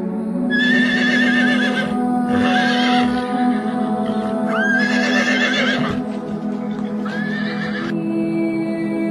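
A horse whinnying four times, each call high and wavering, over calm ambient background music with long held tones.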